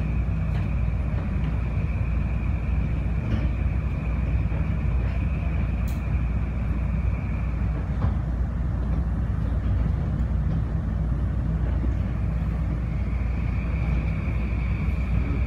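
Incheon Airport maglev train running, heard from inside the car: a steady low rumble with a thin high whine that drops out about halfway through and comes back near the end.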